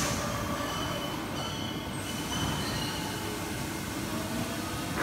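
Factory machinery noise around a plastic vibration welding machine: a steady low rumble with short, thin squeaking tones, just after a brief hiss at the start.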